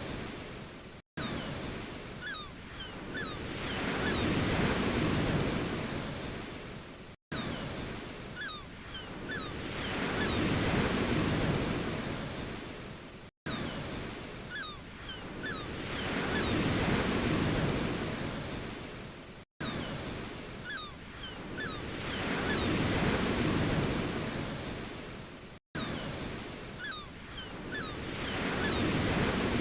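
Ocean waves washing in and drawing back, each swell rising and falling over a few seconds. A short recording is looped, with a brief dropout to silence about every six seconds.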